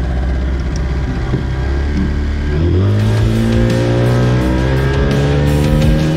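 Two-stroke 30 hp Mercury outboard running, then opened up about three seconds in, its note climbing steadily as the RIB gathers speed. Rock music comes in over it at the same time.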